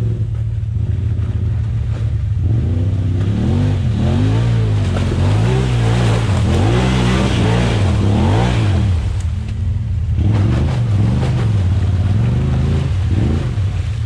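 Side-by-side UTV engine revving up and down again and again as the machine claws over mud and rock, with a rush of spinning tyres throwing mud through the loudest stretch. It eases off briefly about nine seconds in, then revs again.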